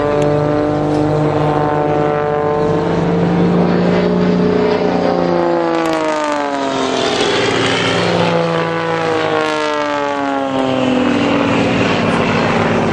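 Two XtremeAir Sbach 300 aerobatic propeller planes' piston engines droning overhead. The engine note falls in pitch several times as the aircraft sweep past.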